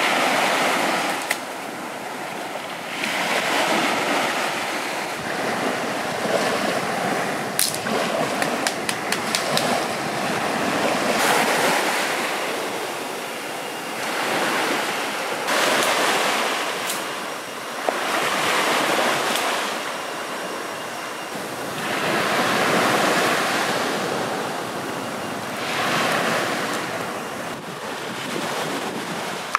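Small sea waves breaking and washing up a sandy shore, swelling and fading every three to four seconds. A quick run of sharp clicks about a quarter of the way through.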